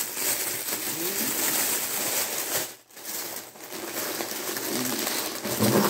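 White packaging wrap rustling and crinkling as it is pulled from a box and handled, with a brief pause about three seconds in.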